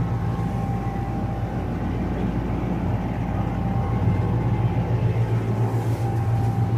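Steady low mechanical hum with a thin, faint high tone inside an enclosed ferris wheel gondola as the wheel turns.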